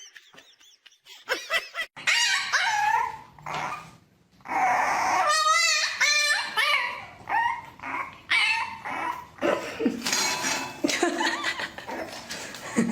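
A dog whining and yipping in a run of short, high calls that slide up and down in pitch, with a brief pause about four seconds in.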